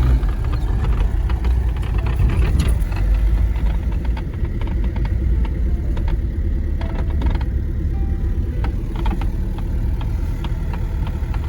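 A car running, with a steady low rumble and many scattered light clicks and rattles over it.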